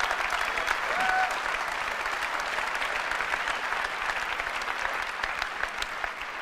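Large auditorium audience applauding steadily, dense clapping that begins to die down near the end.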